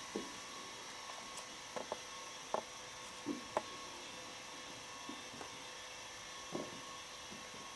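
Kittens playing on a carpet and against a wicker chair, making scattered light taps and knocks about eight times, over a steady hiss.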